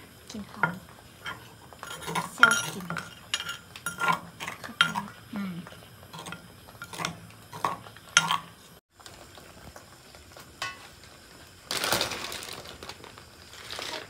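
Wooden pestle pounding sauce ingredients in a mortar, dull knocks about two a second that stop around nine seconds in. Near the end, a steady hissing rush from the pot of boiling snails as its lid comes off.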